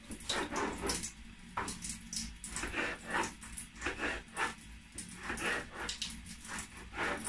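Kitchen knife slicing a cucumber into strips on a wooden cutting board: a run of short, irregular cuts, about two a second.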